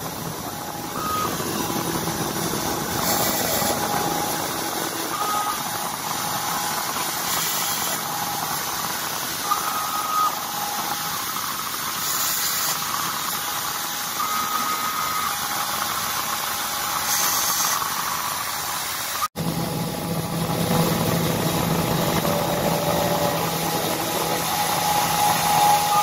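Small CNC router's spindle running steadily as its engraving bit mills isolation traces into a copper-clad circuit board, with short higher tones coming and going as the machine moves. The sound drops out for an instant a little past two-thirds through.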